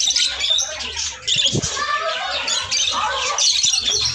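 Several caged lovebirds chattering, a steady stream of rapid, high squawks and chirps overlapping one another.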